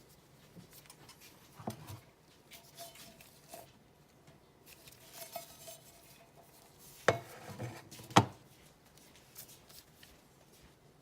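Scattered knocks and clinks of a metal frying pan and wooden handle being handled, some leaving a faint metallic ring, with two louder knocks about a second apart past the middle.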